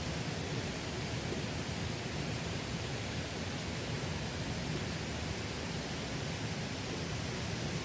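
Mountain stream water rushing steadily over rocks: an even, unbroken rush with no change in level.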